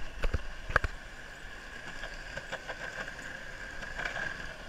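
Skateboard wheels rolling over asphalt with a steady whir, and a few sharp clicks in the first second.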